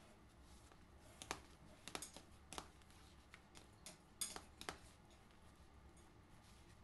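A fork mashing ripe peeled bananas in a bowl, the metal tines clicking sharply against the bowl several times between about one and five seconds in, over a faint steady background.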